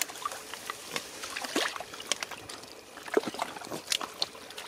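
Thick wet mud squelching and sloshing as it is worked, in irregular short slaps and clicks.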